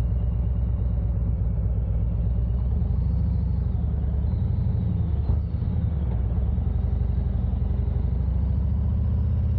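Vehicle engine and road noise while driving, a steady low rumble, with a brief knock about five seconds in.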